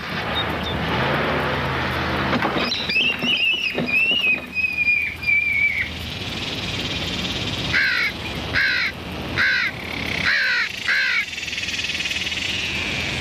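Crows cawing: a quick run of about five short, falling caws in the second half, preceded by a wavering high tone that drops away a few seconds in.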